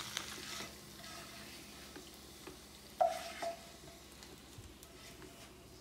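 Wooden spatula scraping and pushing fried salami slices across a frying pan, over a faint sizzle of hot oil; two sharper scrapes about three seconds in.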